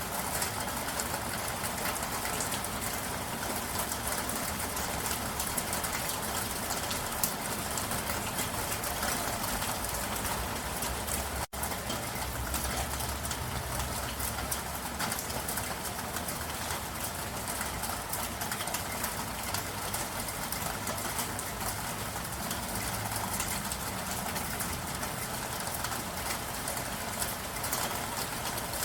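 Steady soft rain: an even hiss of falling rain dotted with many small drop ticks. The sound breaks off for an instant about eleven seconds in.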